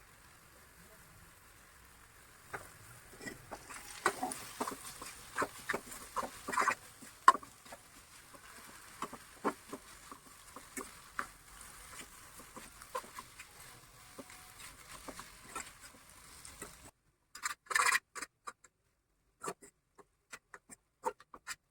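Irregular clicking and tapping of a kitchen utensil against cookware, a few sharp knocks a second. About seventeen seconds in, the sound cuts off abruptly; a few short bursts of clicks follow.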